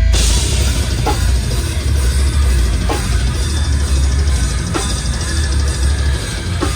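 Loud live heavy band music: a drum kit with amplified instruments, kicking in all at once and playing full out, with heavy accented hits every couple of seconds.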